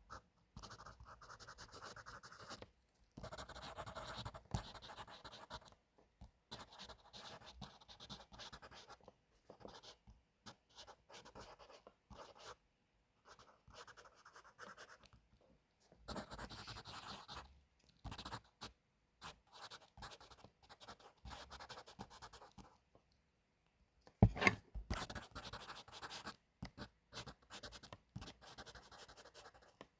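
Pencil writing on paper: stretches of scratchy strokes a second or two long with short pauses between them. A single sharp knock stands out, the loudest sound, a little past the middle.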